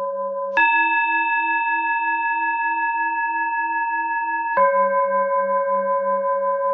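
Tibetan singing bowl tones that switch abruptly between two pitches, with a steady pulsing waver in the lowest note. About half a second in, a low tone gives way to a higher tone held for four seconds, the cue to breathe in. Near two-thirds through it drops back to the low tone, the cue to breathe out slowly.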